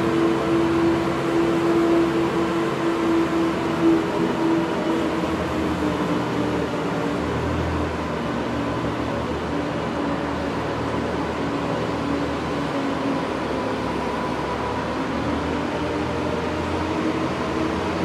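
Zamboni ice resurfacer running steadily: an even engine hum over a wash of noise, its main hum dropping slightly in pitch about six seconds in and rising back near the end.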